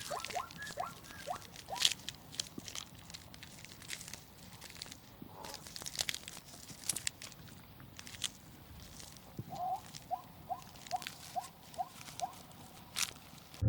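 A small animal giving quick runs of short rising squeaks, about four a second, near the start and again in the last few seconds, over scattered crisp clicks and crunching.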